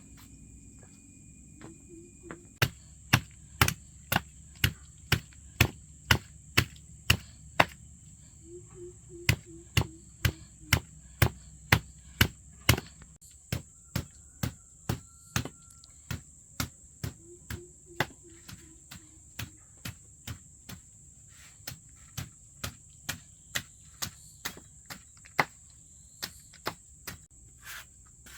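Repeated sharp knocks, about two a second, like chopping or hammering, starting a couple of seconds in and going on steadily over a continuous high chirring of crickets.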